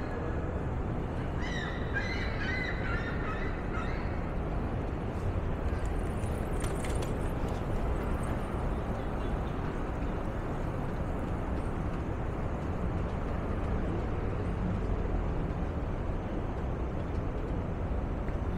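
Downtown street ambience: a steady rumble of city traffic. From about one and a half to four seconds in there is a brief run of high, wavering chirping calls.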